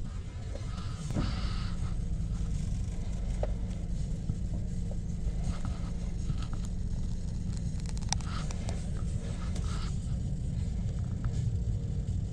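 Car engine and road rumble heard from inside the cabin while driving, steady and low, with a few faint clicks about eight seconds in.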